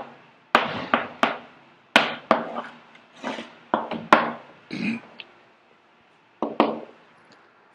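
Chalk writing on a blackboard: a string of sharp taps and short scratches at irregular strokes, with a pause of about a second near the end.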